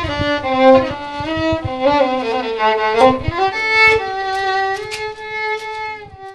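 Solo violin playing a melody, one note after another.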